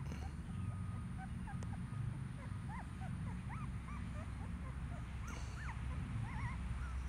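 Young puppies whimpering and squeaking: many short, high, rising cries, scattered and overlapping, over a low steady rumble.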